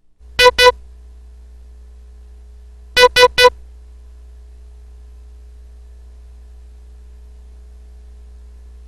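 Morse code sent as short electronic beeps at about 500 Hz: two dits, then after a gap of about two and a half seconds three dits, the letters I and S, spelling "IS". A steady low hum runs underneath.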